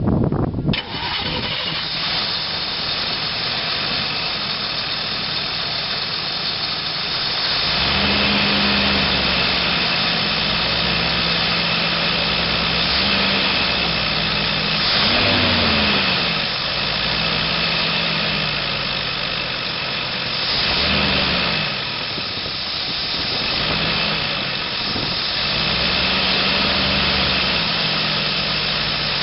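1986 GMC Blue Bird school bus's 366 cubic-inch big-block V8 with a four-barrel Holley carburetor running. From about eight seconds in it holds a steady idle, and its pitch rises and falls several times as the gas pedal is worked.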